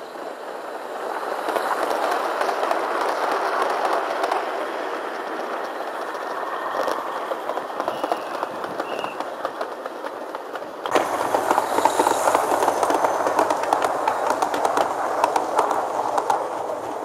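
Large-scale model train wagons rolling past on the track close by, their metal wheels rattling and clicking steadily over the rails. The sound gets suddenly louder about two-thirds of the way through.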